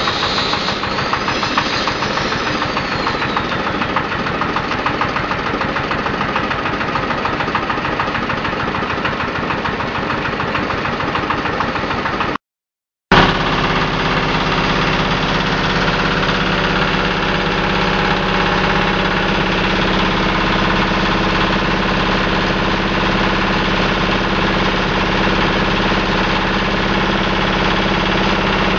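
Small engine driving a hydraulic seaweed press, running steadily. The sound drops out for a moment about twelve seconds in, then carries on with a steadier hum.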